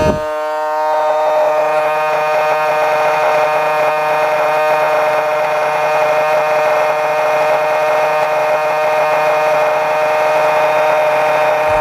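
Small 18-volt brushed DC motor spinning a generator under full load (two light bulbs), running at a steady speed with a high, even whine and a rough buzz. A low bump at the start and another near the end.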